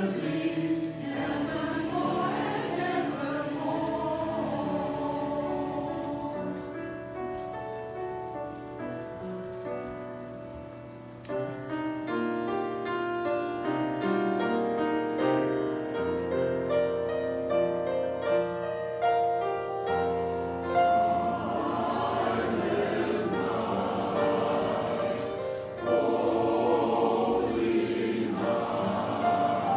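Mixed church choir singing a hymn with accompaniment. The singing grows softer toward about ten seconds in, a new passage of steady held chords enters suddenly, and the choir swells louder in the last third.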